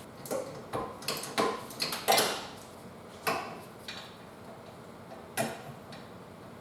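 Metal hand tools clinking and clanking against the rear handbrake caliper's 15 mm bolts: a string of sharp, irregularly spaced metallic knocks, bunched in the first two and a half seconds, with two more near three and five and a half seconds in.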